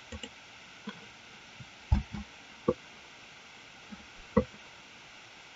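Computer mouse and keyboard clicks: a scattering of short clicks and knocks, the loudest about two seconds in and another about four and a half seconds in.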